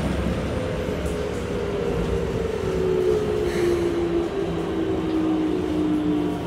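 Keikyu 1500 series train's Mitsubishi GTO-VVVF inverter and traction motors whining over a steady rumble of wheels in the tunnel, heard inside the car. The whine falls steadily in pitch as the train slows.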